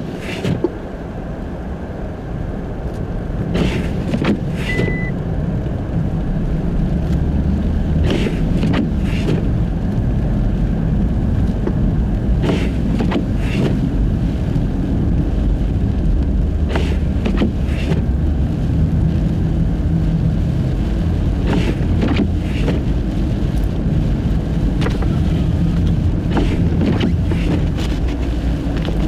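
Car driving on a snow-covered road on studless tyres: a steady low rumble of tyres and drivetrain that grows louder a few seconds in, with scattered short knocks.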